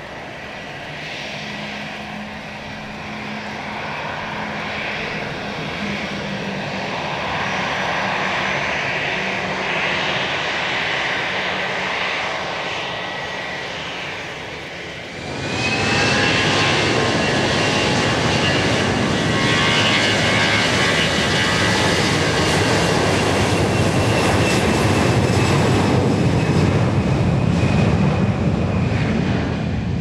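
Airplane engines running at the airport, slowly growing louder with a steady whine, then about halfway through jumping suddenly to a much louder, full engine noise that holds steady.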